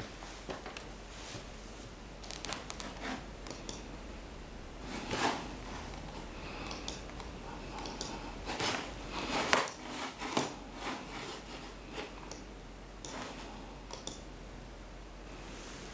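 Irregular rustling, rubbing and clicking close to the microphone, the sound of things being handled at the desk, over a steady low electrical hum. The loudest scrapes come about five seconds in and again from about eight to eleven seconds.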